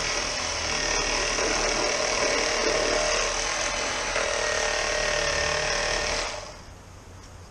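Electric fillet knife running as it cuts along a sheepshead, a steady motor whir with a few held tones, stopping abruptly about six seconds in.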